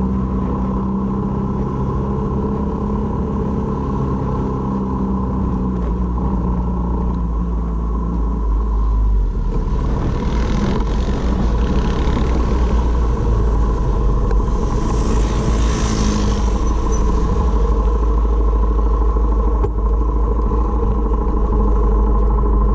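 Honda MSX125 single-cylinder engine running steadily under way, with a rushing hiss swelling and fading in the middle.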